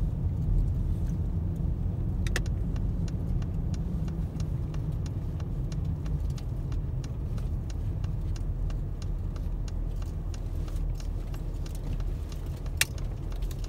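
Steady low rumble of a vehicle on the move, with light clicks and ticks scattered throughout and two sharper clicks, one early and one near the end.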